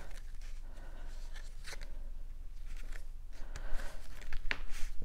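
Cardstock rustling and sliding under the hands as a folded box card is closed and pressed flat, with scattered soft clicks of the paper, growing busier near the end.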